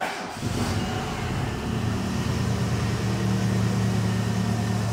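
Renault Mégane II 1.6 petrol engine, freshly rebuilt, starting: a brief crank, then it catches within about half a second and settles into a steady idle. The exhaust is loud, with its flex pipe and resonator due for replacement.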